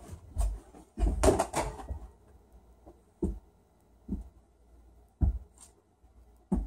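A small ball thumping and knocking against a door and the floor during indoor basketball shots: a louder cluster of knocks about a second in, then single dull thumps roughly a second apart.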